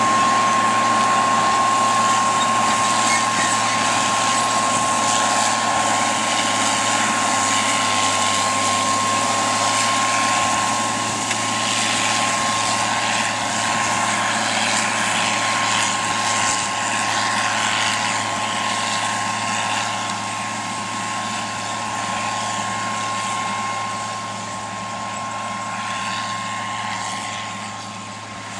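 John Deere 4650 tractor's six-cylinder diesel running steadily under load while pulling a planter, with a steady high whine. The sound grows gradually fainter over the second half.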